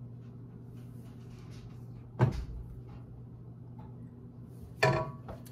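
Two sharp knocks, about three seconds apart, of a spatula against a stainless steel mixing bowl while scooping frosting, the second with a short ring. A steady low hum runs underneath.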